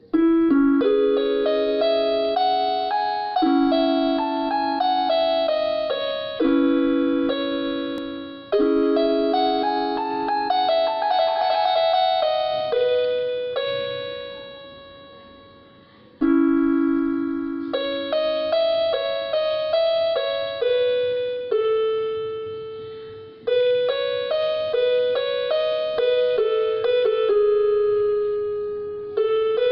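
Electronic keyboard played with a piano sound: a slow melody over chords, each phrase struck and left to ring and fade. The playing dies away about halfway through, then starts again with a new phrase.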